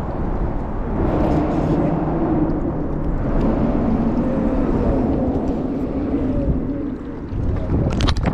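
A steady engine hum from about a second in until near the end, over a low wind rumble on the microphone, with a few sharp handling clicks at the very end.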